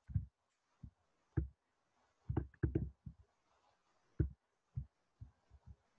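About a dozen soft, irregular low thumps, a few of them close together in the middle.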